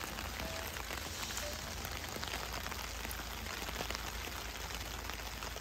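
Steady rain, an even patter with many small individual drop ticks.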